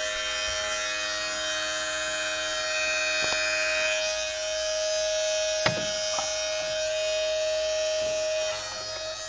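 Small electric utility pump with a strainer running, pumping out standing water with a steady high buzzing whine. A single sharp click comes about five and a half seconds in, and the pump's tone drops off shortly before the end.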